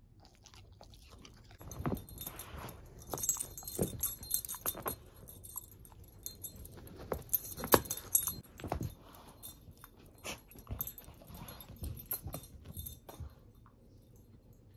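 A shepherd-mix dog playing with a stuffed toy: her metal collar tags jingle in irregular bursts over scuffling and soft thumps, with one sharper knock about halfway through.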